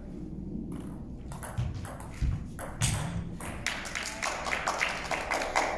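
Table tennis rally: a celluloid-type ping-pong ball clicking sharply off paddles and bouncing on the table, with a few dull thuds of footwork around the middle and the clicks coming thicker in the second half.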